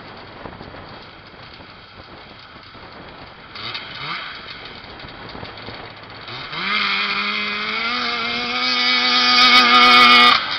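Two-stroke 500cc Polaris snowmobile engine in a John Deere 317 race tractor, running low with a brief rev about four seconds in. About six seconds in it revs up, its pitch climbing steadily as it grows louder, then cuts off suddenly near the end.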